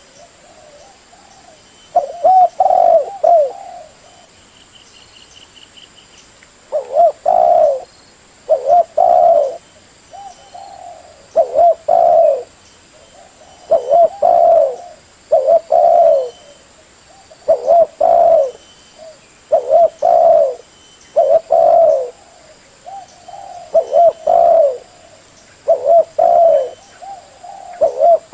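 Spotted dove cooing: repeated short phrases of low, rolling coos, one about two seconds in, then after a pause a steady run of phrases roughly every two seconds.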